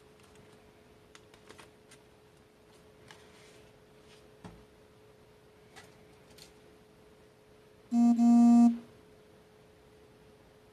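A short synthesizer-like chime, one pitched tone lasting under a second, about eight seconds in. Before it, faint taps and rustles of folded origami paper being handled and set down on the table, with a soft knock about four and a half seconds in, over a faint steady hum.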